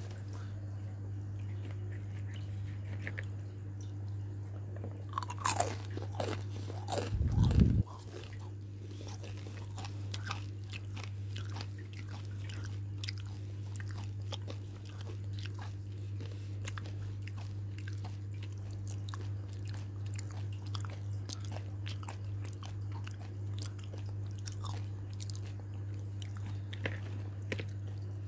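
Close-up crunchy chewing and biting of crispy battered fried food: a dense run of small crackles, with a louder burst of crunching about five to eight seconds in. A steady low hum runs underneath.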